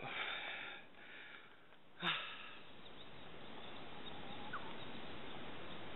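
Faint outdoor ambience: a breath in the first second, a short click about two seconds in, then a steady low hiss with one short rising chirp a little past the middle.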